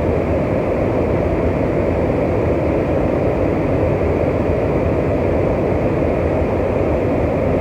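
Steady rumble and hiss of a Metrorail car's running equipment heard from inside the car, with no chime or announcement.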